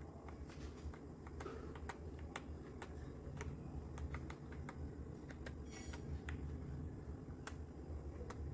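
Keys on a Redragon K596 Vishnu mechanical keyboard with linear red switches being pressed one at a time in slow, irregular keystrokes, about two a second. A steady low hum runs underneath.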